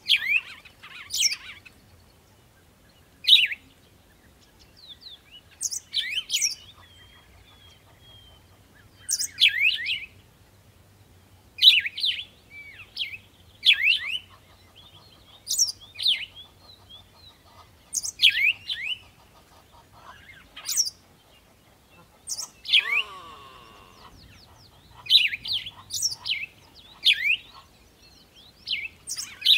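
Birds chirping: short, high, quickly falling chirps in little clusters every second or two, with one lower, drawn-out falling call about three-quarters of the way through.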